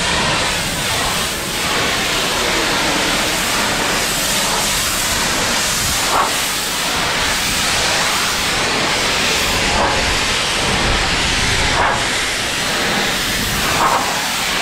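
High-pressure washer jet blasting a hauled-out boat's hull, a steady loud hiss of spray that washes off barnacles and loose blue bottom paint.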